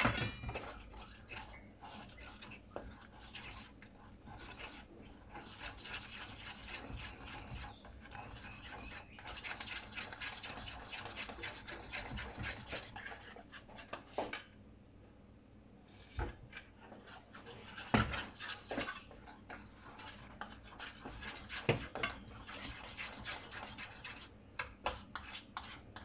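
Wire whisk beating tempura batter in a steel mixing bowl: rapid scraping and clicking of the wire against the metal, with a short pause a little past halfway and a few sharper knocks.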